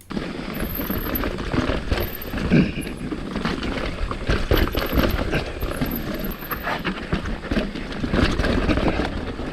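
Mountain bike riding down a rough dirt trail: tyres rolling over dirt and rocks with a steady rumble, and frequent irregular clicks and rattles from the bike, with wind buffeting the microphone.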